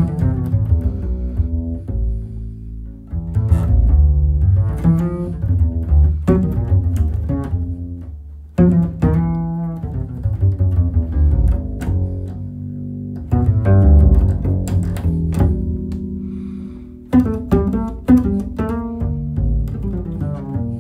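Custom travel double bass with a removable neck, played solo pizzicato: a melody of plucked notes, many left to ring, with short breaks between phrases.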